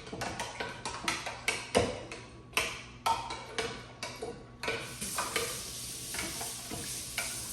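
Cooking sounds: irregular sharp knocks and clicks of a utensil working, then a steady sizzle of food frying in a hot pan begins about halfway through.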